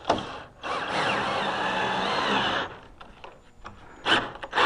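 Ryobi drill running for about two seconds as it drives a bolt through the drawer slide into a T-nut, its pitch shifting as the bolt draws the T-nut tight. A few sharp knocks come near the end.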